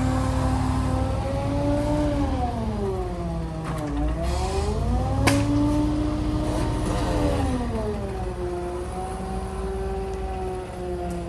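An engine running, its speed sagging and picking up again several times, with the deepest dip about four seconds in; a single sharp knock about five seconds in.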